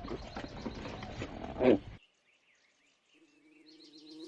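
An animal calls loudly once over rough outdoor noise, then the sound cuts off abruptly halfway through. After about a second of silence, the steady buzzing of a flying insect fades in near the end.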